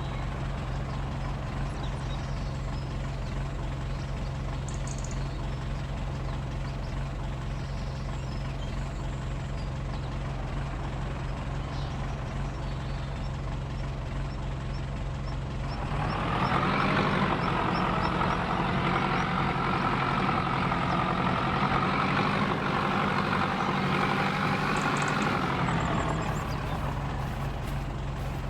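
Heavy farm machinery engine running at a steady low drone. About halfway through, a louder whining hum with several tones rises in, holds for about ten seconds, then drops away to the plain drone again.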